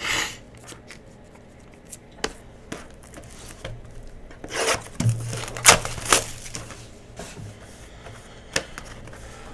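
Cards and card packaging being handled at a table: scattered clicks, taps and rustles, with a few sharper knocks around the middle, over a faint low hum.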